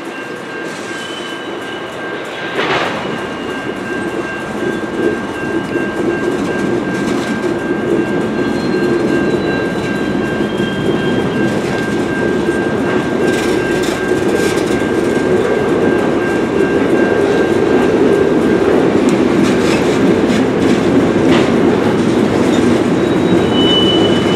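Freight train of covered hopper cars rolling slowly through a grade crossing, wheels rumbling and clanking over the rails and getting louder as the cars come across. A steady high tone sounds underneath and stops about three quarters of the way through.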